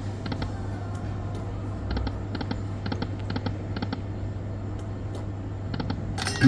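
Dyna Blitz Link 'Mad Rooster' poker machine sound effects: small clusters of quick clicking ticks, about two clusters a second, over a steady electrical hum, then a sudden loud chime at the very end.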